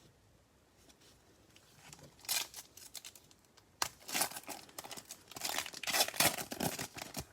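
A trading card pack wrapper being torn open and crinkled, in crackling bursts that begin about two seconds in.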